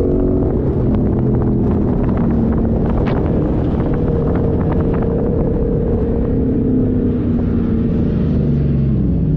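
Off-road 4x4's engine running under changing load as it drives, its note shifting up and down and dropping near the end, over a heavy low rumble, with rattles and knocks in the first few seconds.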